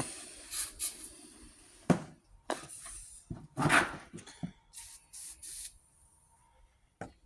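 Aerosol anti-corrosion spray hissing onto battery terminal ends in several short bursts, with knocks and rattles from handling the can and cables in between.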